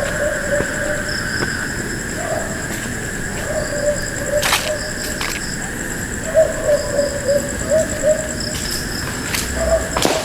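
Dogs barking in the distance, short calls repeated in bouts, over a steady chorus of night insects. A couple of sharp clicks, one near the middle and one near the end.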